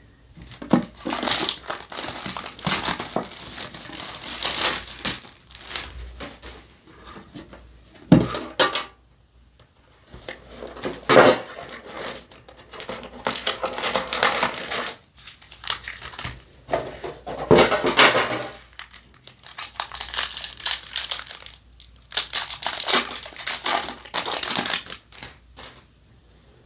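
Foil trading-card booster-pack wrappers crinkling as they are handled and opened, in a string of bursts with short pauses between them.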